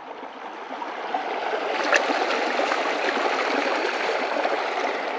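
Creek water running steadily, an even rushing that grows louder over the first second or two and then holds.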